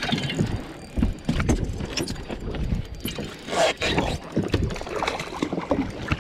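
Irregular knocks, clatters and rustles of a fish being reeled in and landed on a bass boat: a spinning reel cranked, the rod and gear bumping against the boat.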